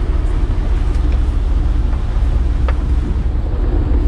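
Steady low rumble of a motorboat's engine running slowly, with wind buffeting the microphone.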